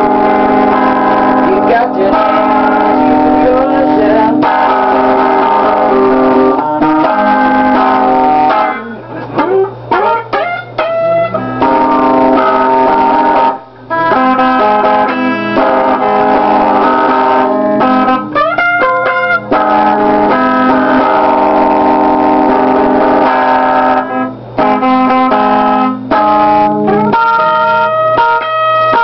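Loud instrumental music led by sustained, sliding guitar notes, with brief breaks about nine and fourteen seconds in.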